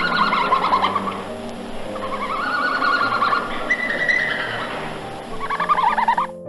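Horse whinnying three times, each a high quavering call, the first falling in pitch, over steady background music.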